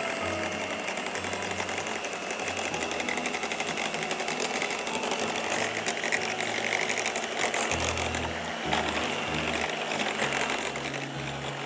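Electric hand mixer with a whisk attachment running steadily, whisking custard in a pan.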